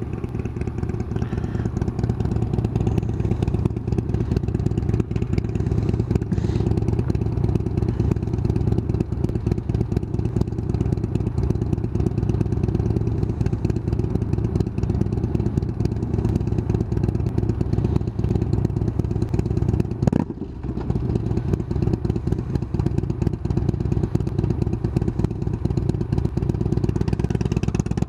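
Kawasaki Versys 1000LT's inline-four engine running steadily under way, fitted with a new K&N air filter. There is a short break in the engine note with a knock about two-thirds of the way through.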